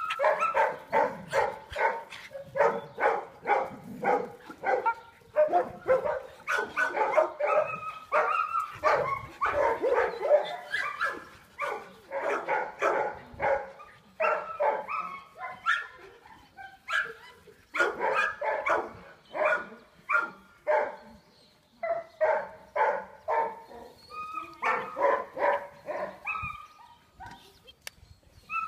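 A dog barking in fast, repeated runs, two to three barks a second, broken by a few short pauses.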